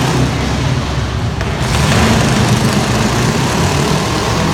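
Loud truck engine running, with a dense noisy roar that grows louder about two seconds in.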